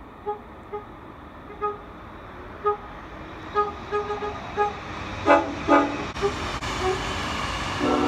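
An approaching train sounds its horn in a series of short toots, getting louder, with two strong toots about five seconds in and a longer blast near the end. A rumble of the train on the track rises as it nears.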